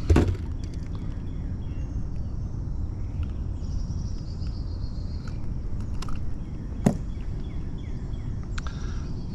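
Outdoor lakeside ambience: a steady low rumble, a few light clicks and knocks with a sharp one about seven seconds in, and faint high bird chirps.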